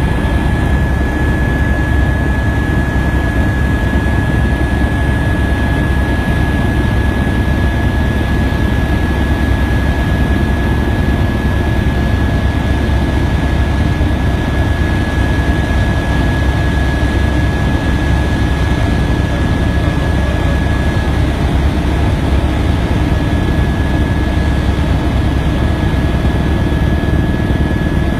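Aircraft engine noise heard from on board in flight: a loud, steady drone with a constant high whine above it.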